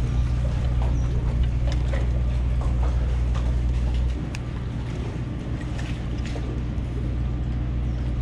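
A boat engine running with a steady low hum; it drops in level about four seconds in, and a few faint ticks sound over it.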